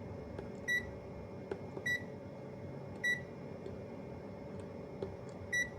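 ZOYI IR-01 thermal imaging multimeter giving four short, high key-press beeps, about a second apart with a longer gap before the last, with a few faint button clicks between them over a faint steady hum.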